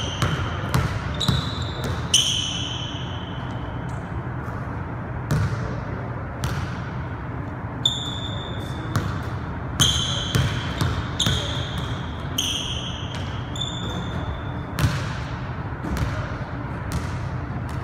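A basketball bouncing on a hardwood gym floor at irregular intervals, dribbled, passed and caught, with short high-pitched rubber sneaker squeaks on the floor as the players cut and stop. It echoes in the large gym.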